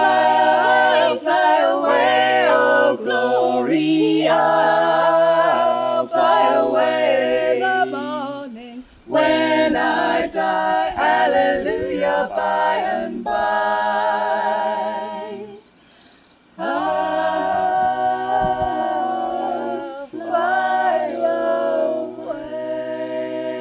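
Unaccompanied voices singing a gospel hymn in close harmony, in long held phrases with vibrato, with a short break about eight seconds in and another about sixteen seconds in.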